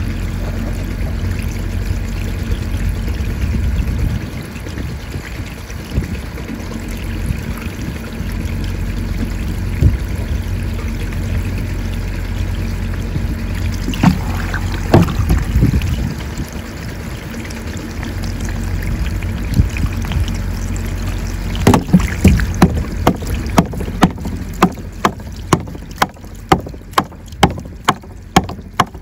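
Water pouring from pipe outlets into a galvanized metal trough, a steady rush and splash. A few knocks come about halfway through, and near the end a run of sharp knocks, about two a second, as a hand tool works on the plastic cap fitted to one pipe.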